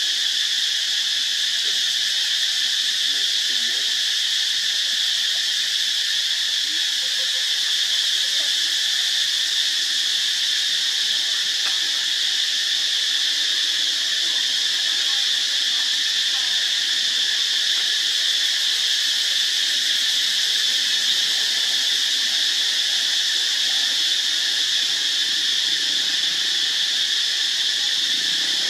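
Steady chorus of forest insects: a continuous high-pitched drone that holds an even level without a break.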